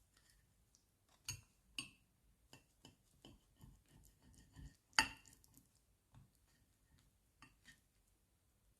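Scattered light clinks and taps of kitchen utensils and dishes during food preparation, with a sharper clink about five seconds in.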